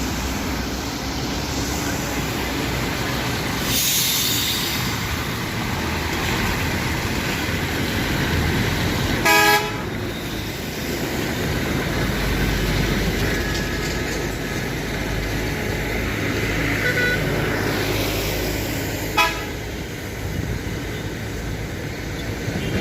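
Steady road and engine noise of traffic, with one short, loud vehicle horn blast about nine seconds in.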